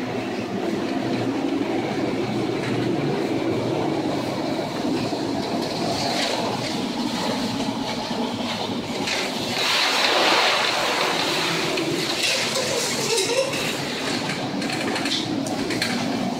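Steady rumble of storm wind and heavy seas aboard a chemical tanker as it pitches through huge waves, with a louder rush of spray about ten seconds in as the bow ploughs into a wave.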